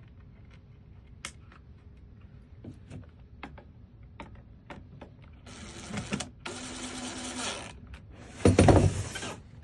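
Electronic door lock handled with light clicks, then its small motor whirring in three spells of about half a second to a second each, with a loud thud near the end.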